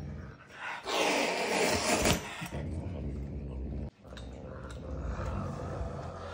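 Caracal growling over a piece of raw meat. There is a loud, rough growl from about one second in that lasts about a second, then quieter growling toward the end, a sign of the cat guarding its food.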